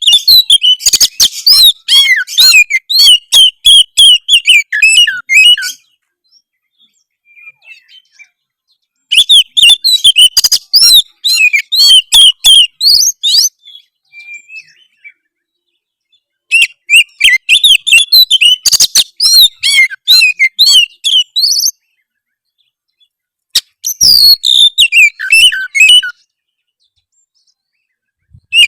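Oriental magpie-robin (kacer) singing a harsh, fast song of rapid chattering and whistled notes, in four bouts separated by pauses of a few seconds. It is a rough, aggressive song of the kind played to provoke rival magpie-robins into singing.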